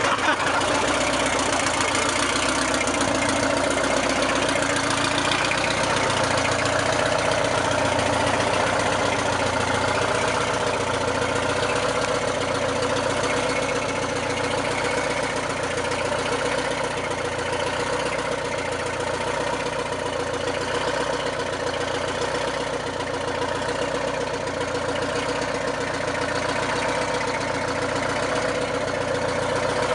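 GMC Scenicruiser bus's diesel engine idling steadily with its rear engine compartment open, a slow, regular throb in the low rumble.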